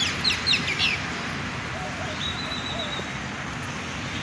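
Bird chirping: a quick run of about six short falling chirps in the first second, then a single held high whistle a little after two seconds in, over steady background noise.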